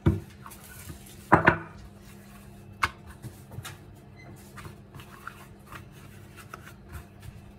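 Wooden rolling pin knocking against hard surfaces: a knock at the start, a sharp double knock about a second and a half in, and another about three seconds in. Light taps and rustles of a sheet of puff pastry being handled follow, over a steady low hum.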